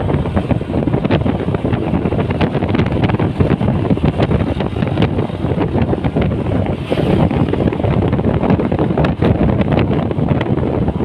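Wind buffeting the microphone over the steady noise of a moving vehicle on the road, with no horn sounding.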